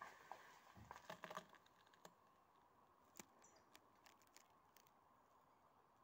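Near silence with faint scattered clicks and light taps, a cluster of them with a soft thump about a second in, and a brief faint high chirp near the middle.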